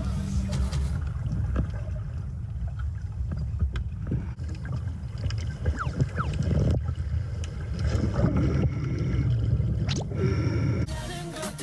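Underwater sound picked up by a diving camera: a steady low rumble of water with scattered clicks and a few short rising bubbling sounds, as a diver with a torch swims and breathes out bubbles. Music fades out about a second in and comes back in near the end.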